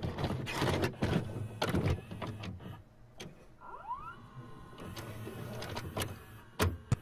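VCR sound effect of a videotape mechanism: a run of clunks and clicks, a short rising motor whir, then two sharp clicks near the end.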